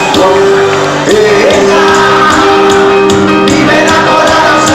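Live cuarteto music: a band playing a steady dance beat with a sung vocal line over sustained keyboard-like tones.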